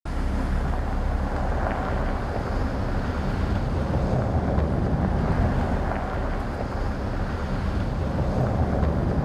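Volkswagen Amarok pickup driving on a dirt track: a steady low rumble of engine and tyres, mixed with wind buffeting the microphone.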